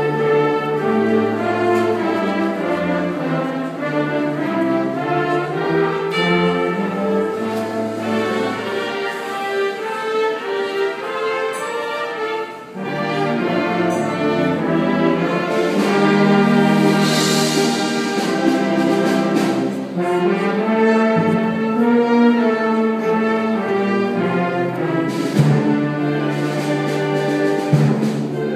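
High school band playing live, with saxophones among the instruments: sustained chords that change as the piece moves on, with a brief break about 13 seconds in.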